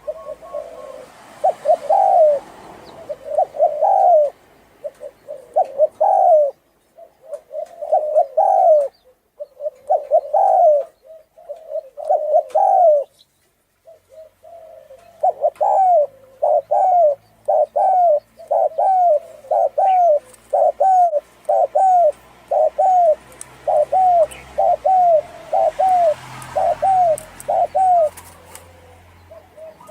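Spotted dove (cu gáy, 'thổ rền' type) cooing: low rolling coo phrases about every two seconds, then after a pause of about two seconds a fast run of short coos, about two a second. Faint chirps of small birds sit behind it.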